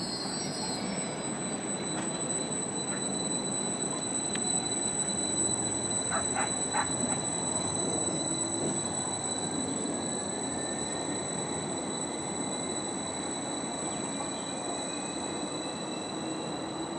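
Greater Anglia Class 755 bi-mode multiple unit running along the platform line and drawing away, a steady rumble with a faint whine that rises in pitch over the second half as it gathers speed. A few short high squeaks come about six seconds in.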